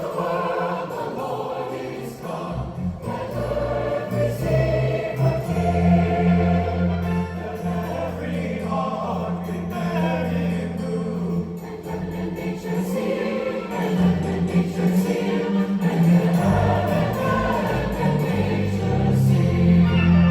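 Massed choir singing a Christmas carol with orchestral accompaniment and sustained low notes underneath.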